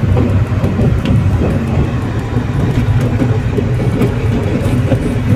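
Car cabin road noise while driving on a wet road: a steady low rumble of tyres and engine.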